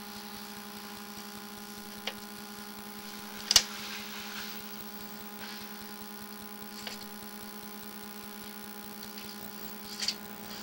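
Steady electrical hum picked up by a sewer inspection camera's recording system, broken by a few short clicks and knocks, the loudest about three and a half seconds in.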